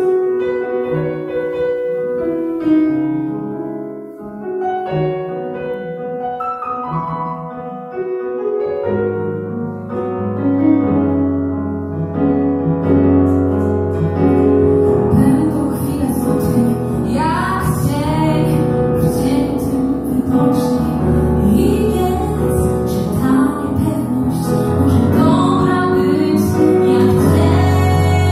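Live piano playing a solo passage, then singing joins in over it about halfway through and the music grows fuller and louder.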